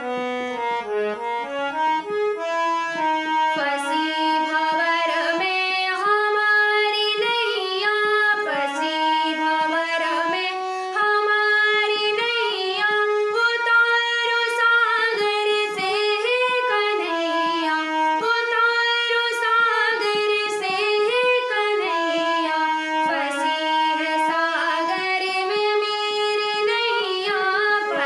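Harmonium playing a bhajan melody in sustained reedy chords, joined a few seconds in by a woman singing in Hindi.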